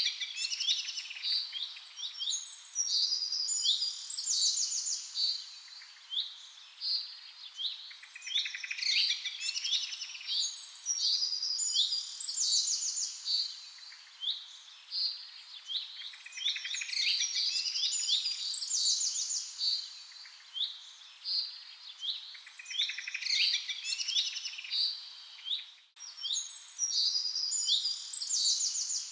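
A songbird singing a complex, high-pitched song of clear whistled notes and fast trills. The same long phrase comes around again about every eight seconds.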